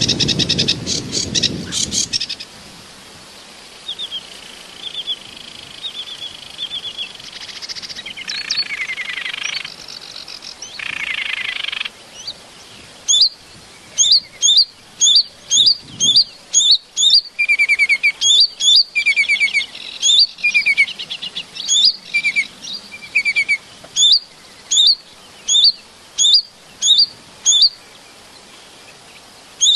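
Small bird chirping: softer, varied calls at first, then from about halfway a loud sharp chirp repeated about three times every two seconds, with lower trilled notes between some of them.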